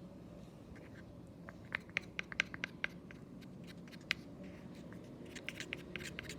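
Quick irregular clicks and scratches from stirring a tapioca-starch and hair-conditioner slime mixture, in two short runs: one about two seconds in and another near the end.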